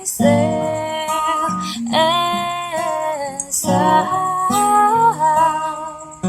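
Acoustic guitar with a woman's voice singing long wordless notes that slide between pitches, in phrases of a second or two.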